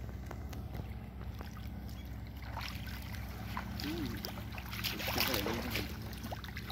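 Wet nylon cast net being dragged through shallow water and pulled in by hand: water sloshing, splashing and dripping off the mesh, picking up about two and a half seconds in and loudest a little past the middle, over a steady low hum.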